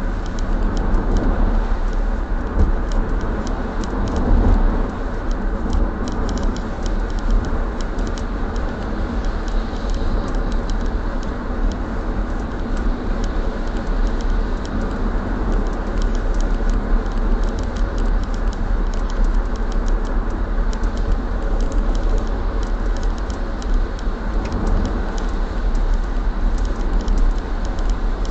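Car driving on a wet road, heard from inside the cabin: steady road and engine noise with tyre hiss from the wet surface. Faint irregular ticks run through it.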